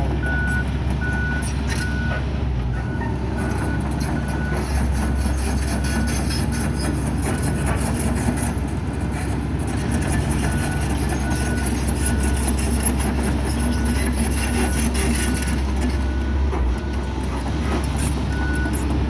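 John Deere 135D excavator's diesel engine running steadily, with its travel alarm beeping about twice a second in spells: at the start, in the middle and again near the end.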